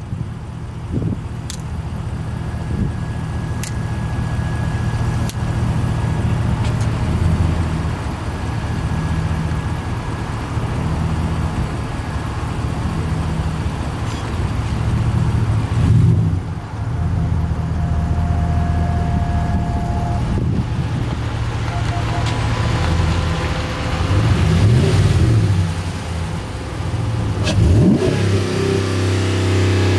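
Pickup truck engine running at idle, with two brief revs that rise and fall near the end.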